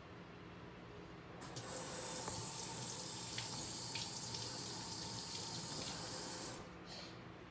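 Water running steadily from a kitchen tap for about five seconds, starting about a second and a half in and shutting off near the end, with a few small clicks.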